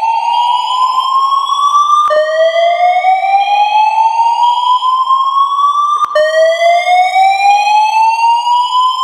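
Building voice-evacuation fire alarm sounding its whoop tone: a loud rising sweep that climbs in pitch over about four seconds, drops back and climbs again, restarting about two seconds in and again about six seconds in.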